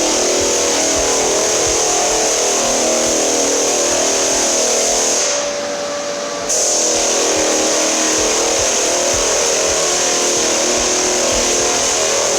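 Heavy floor sanding machine running steadily with a loud, even hiss and hum; its high hiss drops away for about a second around the middle, then comes back.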